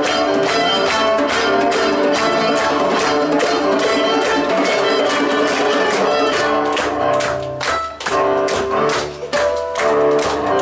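A live folk band playing an instrumental tune: fiddle leading over djembe, cello, acoustic guitar and drum kit, with a steady drum beat. The band drops out briefly twice in the second half, stop-time breaks in the tune.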